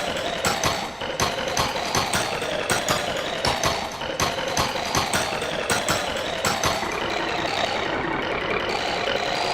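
Rhythmic remix beat built from chopped, repeated cartoon audio samples, with sharp hits a little over twice a second over a dense rumbling bed. About seven seconds in, the hits give way to a steadier rumbling texture.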